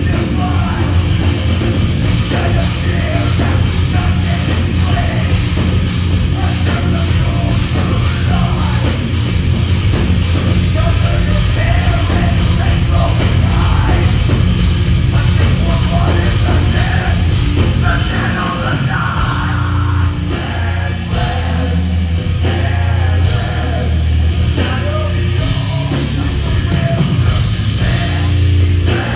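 Metal band playing live, heard from the audience: a heavy, loud mix of drums with regular fast strikes and a dense low end, and a vocalist singing into a microphone over it.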